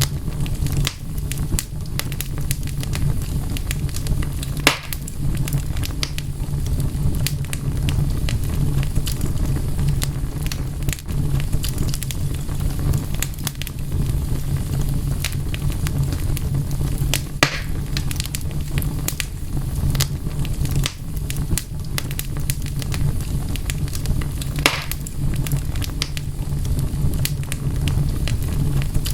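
Wood fire crackling steadily over a low rumble, with dense small crackles and three louder pops spread through it.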